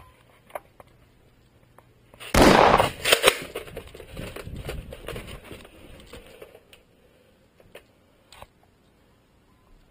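A loud shot-like bang about two and a half seconds in, followed by a few fainter cracks and clicks that trail off over the next few seconds.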